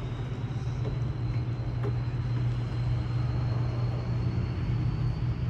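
Steady low mechanical hum, like a motor or engine running, with a faint thin high whine above it.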